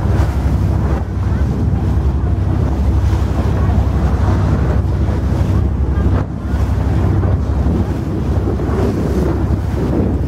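Wind buffeting the microphone over the rush of water from a small motorboat's bow wave, with a steady low motor hum underneath. The level dips briefly about six seconds in.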